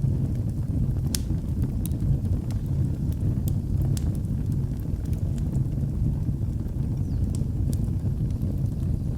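Fireplace fire burning with a steady low rumble and sharp, irregular crackles and pops of the burning wood.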